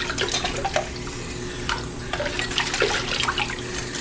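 Kitchen tap running into a sink of water, with irregular splashing and small clatters as rubber gas mask parts are rinsed of soap.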